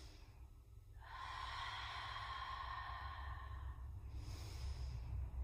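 A woman breathing slowly and deeply during a held yoga stretch: one long audible breath of about three seconds starting a second in, then a shorter breath near the end. A steady low hum sits underneath.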